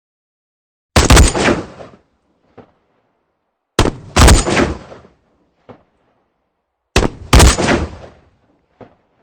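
Gunshot sound effect: three volleys, each of two sharp shots about half a second apart that ring out for about a second. A faint click comes between volleys.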